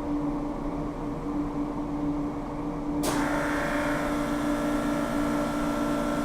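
Steady electrical buzz from fire alarm panel equipment, with a sharp click about three seconds in, after which a higher steady whine joins.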